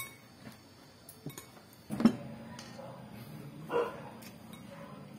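Tableware being handled: small clicks of a spoon and chopsticks against ceramic bowls, with one louder knock about two seconds in. After the knock a low steady hum sets in, and a brief call is heard about four seconds in.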